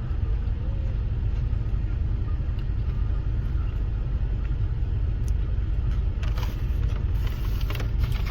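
Steady low rumble, with a few short clicks and rustles in the last couple of seconds.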